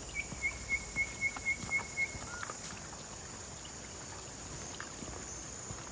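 A bird calls a quick run of about seven short, even notes, roughly four a second, over the first two seconds, then gives one lower curving note. Underneath runs a steady high-pitched insect drone.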